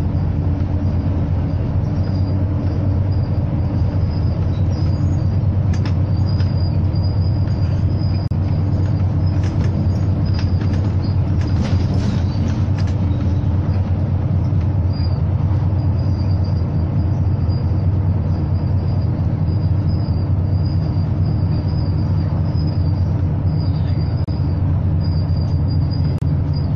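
Engine of the bus MOS-276 running steadily with a deep, even drone. A faint high whine comes and goes, with a few light clicks and rattles around the middle.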